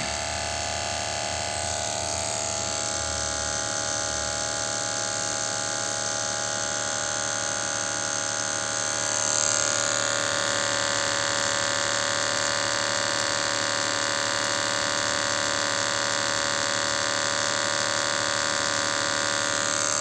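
Toyota Prius four-cylinder petrol engine idling steadily after start-up, with new injectors and spark plugs fitted. It runs evenly, without the start-up rattle it had before. The tone shifts slightly and gets a little louder about nine seconds in.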